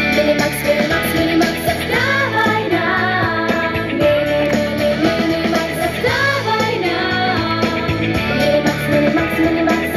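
Pop song sung by a group of young girls, their voices carrying the melody over a full band backing.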